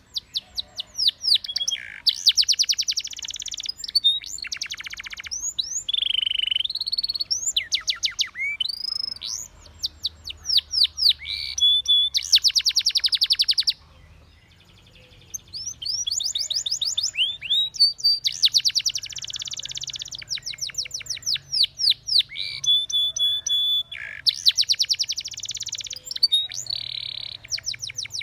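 Spanish Timbrado canary singing a long song of rapid trills and sweeping whistled notes, with a short pause about halfway through.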